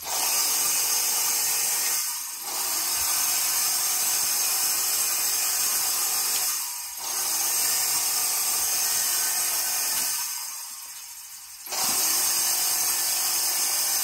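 Columbia Coatings HyperSmooth 03 LED electrostatic powder-coating gun spraying powder with a steady hiss. It stops briefly about two seconds in and again around seven seconds, then stops for over a second near the ten-second mark before spraying again.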